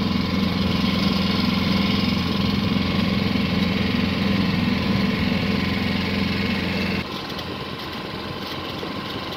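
Small sailing yacht's auxiliary engine running steadily at low revs under motor, heard from on board. About seven seconds in the sound drops to a quieter engine noise.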